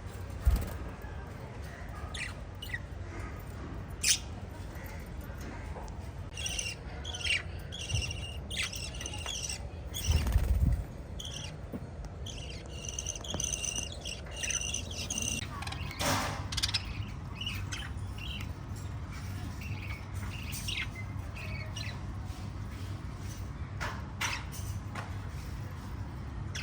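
Pet lovebirds chirping in short runs of quick, high chirps. A few sharp knocks and one louder low thump about ten seconds in break in, over a steady low hum.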